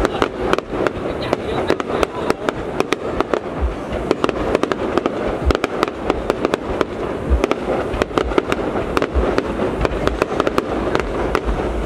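Aerial fireworks bursting: a dense, unbroken string of sharp bangs and crackles, several a second, over a steady background rumble.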